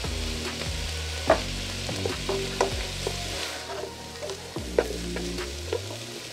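Diced bell peppers and onions sizzling as they sauté in a pot, stirred with a plastic slotted spoon that knocks against the pot several times, most sharply about a second in, at two and a half seconds and near five seconds.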